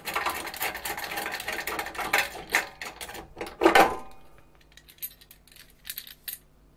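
Metal rattling and scraping as a metal-framed expansion card is worked loose and slid out of its slot in a card frame, with one loud clunk and a brief metallic ring about three and a half seconds in, then a few light clicks.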